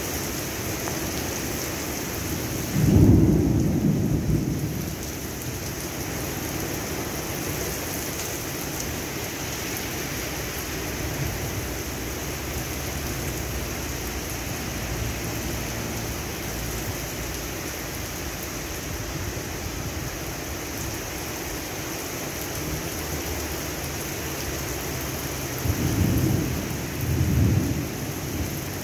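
Heavy rain falling steadily, with a sudden loud clap of thunder about three seconds in that rumbles away over a couple of seconds. Near the end come two more rolls of thunder.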